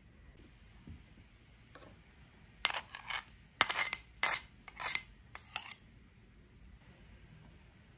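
Knife blade clinking and scraping against a ceramic saucer and bowl as minced garlic is pushed off into melted butter. There is a quick run of about seven sharp, ringing clinks, starting about two and a half seconds in and lasting about three seconds.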